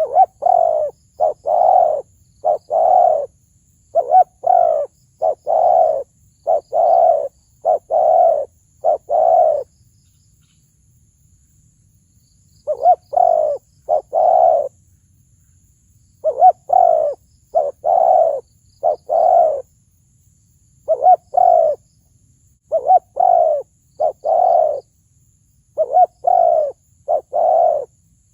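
Spotted dove cooing in a deep, ringing voice: loud coo phrases of several notes repeated one after another, with a pause of about three seconds partway through.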